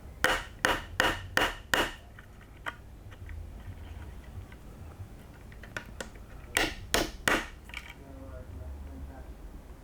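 Sharp taps as a part is knocked into place in a 3D-printed plastic RC car's front suspension: five quick taps, then three more a few seconds later.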